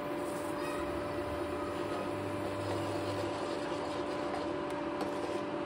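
Steady electric hum and fan noise from a portable induction cooktop running under a pan of curry, with a few faint spoon clicks against the pan near the end as the curry is stirred.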